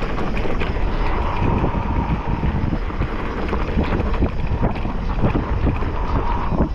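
Wind rushing over the microphone while riding a mountain bike along a rough trail, with many short knocks and rattles of the bike over bumps.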